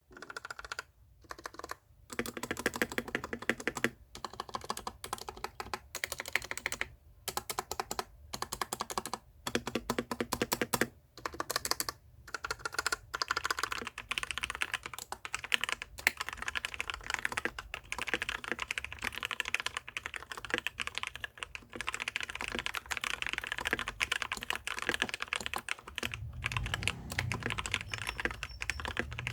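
Typing on a Maxtill TRON G400K mechanical keyboard with Outemu brown tactile switches: rapid runs of keystrokes broken by short pauses in the first half, then steady continuous typing. The switches are spray-lubricated with Super Lube grease and the stabilizers greased, with no sound-dampening mod.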